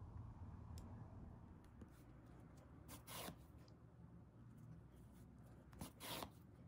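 Yarn being drawn through a rug's edge while overcasting it by hand with a needle: two faint swishes of yarn rubbing through the pile, about three seconds in and near the end.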